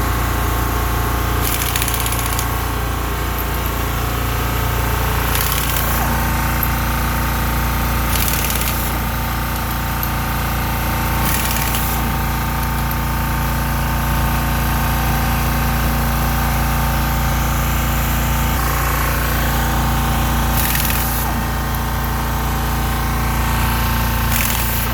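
Toyota 7FBE18 battery-electric forklift travelling, its drive motor giving a steady whine over a low hum. Short rattling bursts recur every few seconds: the funny sound when travelling, which the uploader traced to a loose counterweight bolt.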